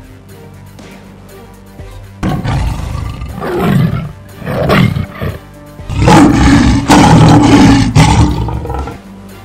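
Big-cat roars: three short roars starting about two seconds in, then one long, loud roar lasting nearly three seconds near the end, over background music.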